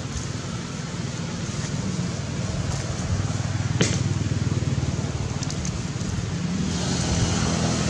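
Steady low hum of a running engine, slowly growing louder, with one sharp click a little before the middle.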